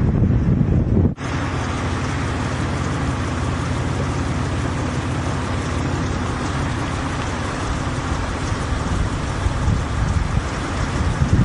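Wind buffeting the microphone, cut off abruptly about a second in. A steady rushing noise with a low hum underneath follows.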